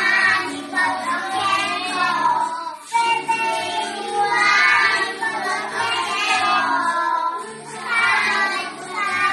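A group of young preschool children singing a song together in unison.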